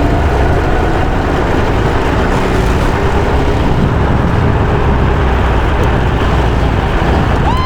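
Go-kart engine running steadily at speed on the track, with a heavy low rumble of wind buffeting the microphone mounted on the kart.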